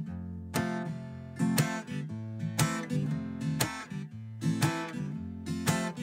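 Acoustic guitar music, chords strummed and plucked with a new chord about every second.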